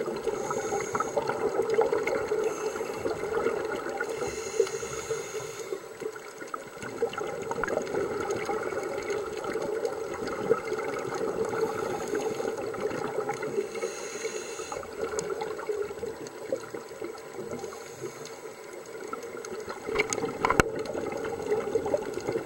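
Underwater reef ambience picked up by a submerged camera: a steady, muffled water rush with a few sharp isolated clicks, the clearest about ten and twenty seconds in.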